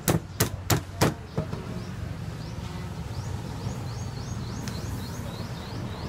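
Cooked crab claws being pounded to crack the shell: four sharp knocks in quick succession, then a lighter fifth. Repeated short high chirps carry on in the background.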